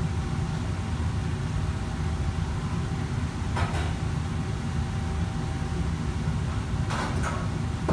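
Steady low roar of a commercial kitchen's extraction hood and wok burners, with a faint steady whine over it. Short clatters of metal cookware come about three and a half seconds in and again near the end.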